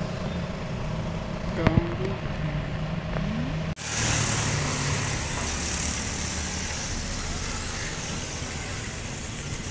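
A steady low engine-like hum, with two sharp clicks about a second and a half in. The sound drops out briefly just before four seconds in, then the hum resumes.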